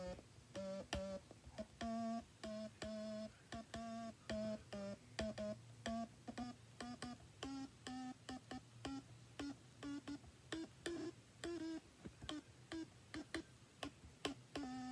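Stylophone, a small stylus-played analog synthesizer, playing a tune of short buzzy notes, about two a second, with a sharp click at the start of many notes; the melody climbs stepwise in pitch through the middle.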